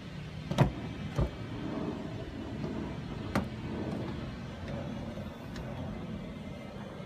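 Car rear door handle being pulled and its latch clicking: three sharp clicks, the first and loudest about half a second in, the last a little over three seconds in, as the door is unlatched and opened. A steady low hum runs beneath.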